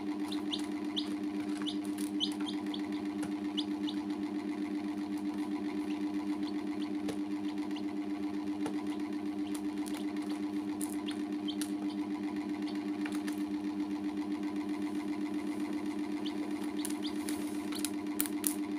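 Baby chicks peeping in short, high cheeps, scattered through and thickest near the start and end, over a steady low mechanical hum, with a few sharp clicks.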